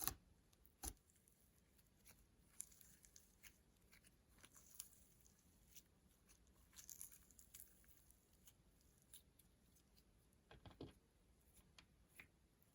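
Slime being handled and mixed, faint: soft sticky clicks and crackles, with two sharper clicks in the first second and a short cluster about ten seconds in.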